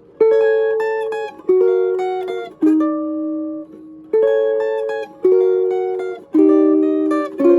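Vintage Silvertone hollowbody electric guitar played clean and direct with no effects: seven picked notes, about one a second, each left to ring out and fade.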